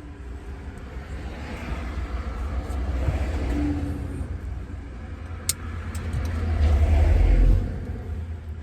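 Motor vehicle noise, a deep engine and road rumble that swells twice, the second time louder, then falls away near the end, like vehicles going past.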